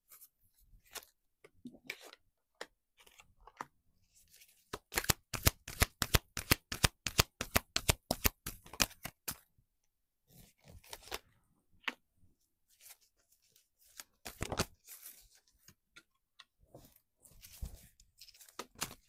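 A tarot deck being shuffled by hand: a fast run of card clicks and slaps in the middle, with softer rustling and scattered clicks before and after.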